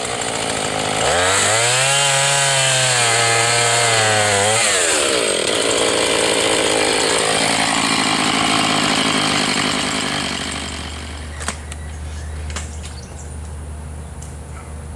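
Chainsaw revving up about a second in and cutting into a tree trunk, its engine note rising and sagging with the load. About ten seconds in it drops to a steady low idle, with a couple of sharp knocks.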